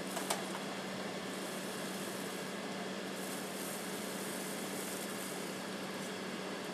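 Steady rushing hiss of a fire hose's water jet over the steady low hum of a running engine, with one sharp click near the start.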